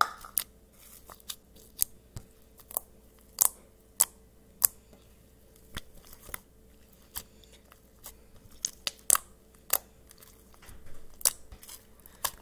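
Textured white slime being pressed and stretched by hand, giving irregular sharp pops and clicks, roughly one or two a second.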